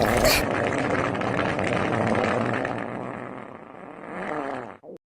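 A long, drawn-out fart sound effect: a low rumble that fades after about three seconds, swells again with a few wavering glides in pitch, and cuts off suddenly near the end.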